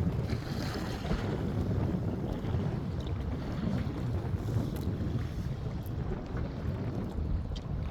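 Wind buffeting the microphone with a steady, gusty rumble, over water splashing around a fishing kayak on choppy bay water, with a few faint clicks.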